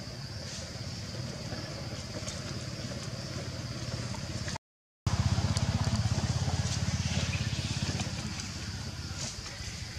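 A low motor-engine rumble with a fast, even pulse, with a steady high insect buzz over it. The sound cuts out completely for about half a second near the middle, and the rumble is louder for a few seconds afterwards before easing off.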